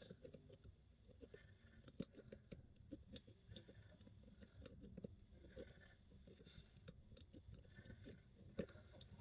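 Faint, irregular small metal clicks and scrapes: a GJ Multi Pick and its tension wire being fiddled into an ERA padlock.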